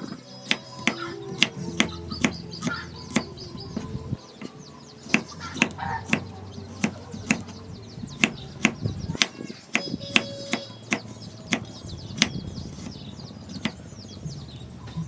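Knife chopping, sharp strikes at about two a second with short pauses about four and nine seconds in, over soft background music.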